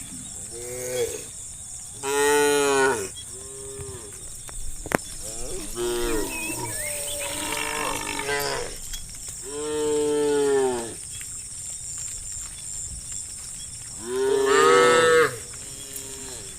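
Cows mooing repeatedly: a run of long, drawn-out moos with shorter ones between, some overlapping. The loudest come about two, ten and fourteen seconds in.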